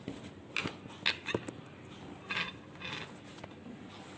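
A metal spoon scraping and tapping against a plastic tub and an aluminium pot as thick palm-fruit pulp is scraped out, several short scrapes and clicks over the first three seconds.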